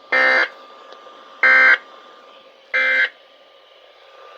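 Weather-radio SAME data tones: three short, identical warbling bursts, each about a third of a second and about a second apart. Their brevity marks them as the end-of-message signal closing an emergency alert broadcast. Faint radio hiss with a thin steady hum lies under them.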